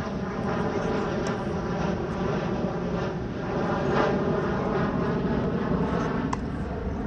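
A steady machine drone with an even hum runs throughout. A tennis ball is struck by a racket once, a sharp pop a little past six seconds in.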